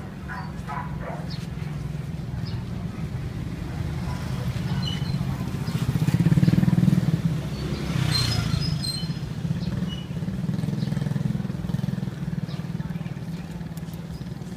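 Motorbike engine running with a steady low hum, growing louder to a peak about halfway through and then easing off.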